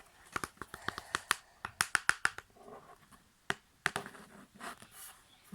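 A quick run of sharp clicks and light taps from small objects being handled, densest in the first two seconds, then two single clicks past the middle.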